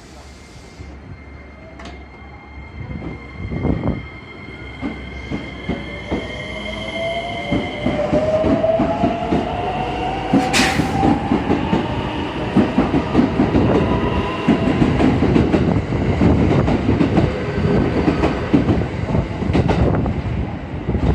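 Electric commuter train pulling away and picking up speed, its motors whining in a pitch that rises steadily, with wheel clatter over the rail joints growing louder and denser. A brief sharp hiss sounds about ten seconds in.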